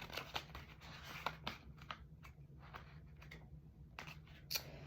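Faint, scattered small clicks and rustles of objects being handled, irregular and a few per second, over a steady low hum.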